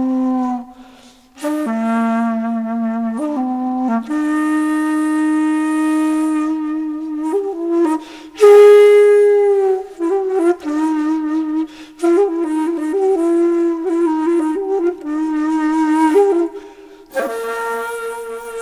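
Background music: a solo flute playing a slow melody of long held notes with vibrato and bending slides between pitches. It pauses briefly about a second in and again near the end.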